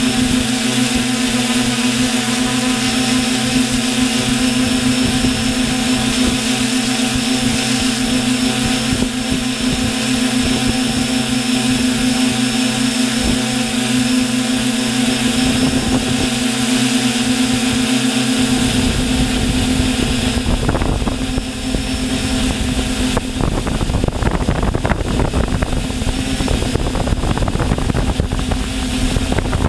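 A multirotor drone's electric motors and propellers humming steadily in flight, heard close up from a camera on the craft, a constant tone with several overtones. From about two-thirds of the way in, low wind buffeting on the microphone joins the hum.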